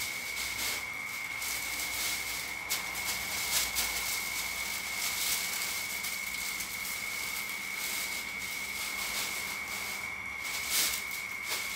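Hot oil sizzling in a wok: a steady hiss with scattered crackles, a few louder pops about three to four seconds in and near the end, and a thin steady high whine running under it.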